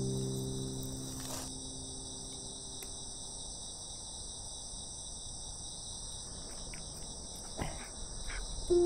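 Steady, continuous chorus of crickets and other night insects, a high unbroken trill, with a few faint clicks near the end.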